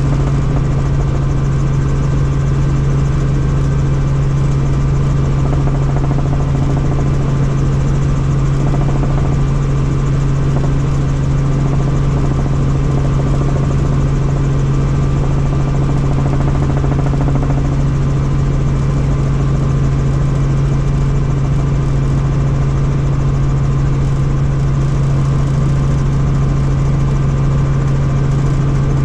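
Light helicopter's engine and rotor drone heard from inside the cabin in flight: a loud, steady low hum that does not change in pitch.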